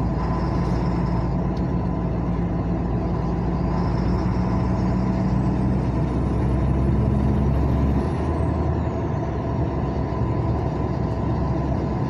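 Road vehicle engine and road noise while driving on a highway, a steady drone throughout. A thin high whine rises slowly from about a third of the way in, then falls away about two-thirds through as the deep engine drone drops off.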